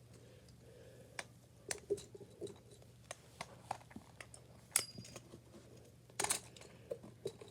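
Small scattered clicks, taps and rustles of plastic and rubber fidget toys being handled, with a brief louder clatter about six seconds in.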